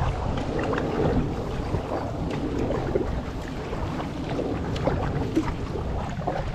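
Water splashing and lapping around a kayak on a lake, with wind rumbling on the microphone.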